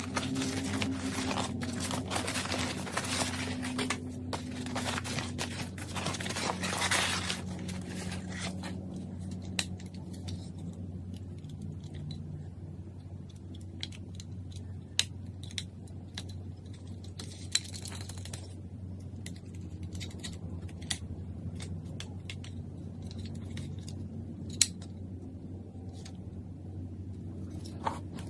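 Close handling noises: several seconds of rustling and scraping with many small clicks, then scattered single sharp clicks every second or few over a steady low hum.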